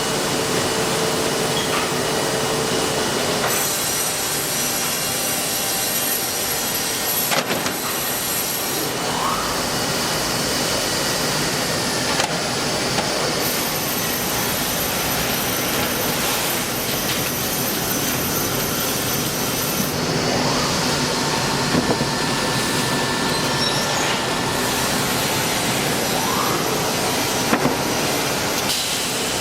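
Plywood edge trimming saw machine running, a steady loud mechanical noise. A thin high whine cuts in and out several times over the span.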